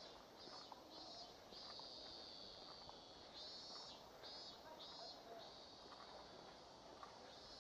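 Faint chorus of cicadas. Their buzz comes in short pulses, two or three a second, that run together into longer steady buzzes. A few faint footstep clicks come through underneath.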